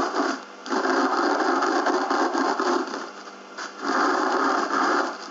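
Rolling pin rolled over chocolate malt grain in a plastic zip-lock bag, crunching and cracking the grains. Two long strokes with a short pause between them.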